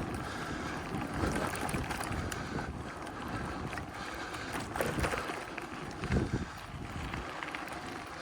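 Wind buffeting the microphone over the crunch of bicycle tyres rolling on a gravel road, with scattered small clicks of loose stones.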